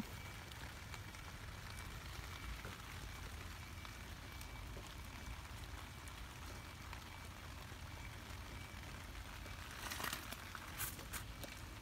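Faint steady hiss. About ten seconds in come a few short crackles and rustles as cherry tomato plant leaves and stems are brushed and handled while the tomatoes are picked.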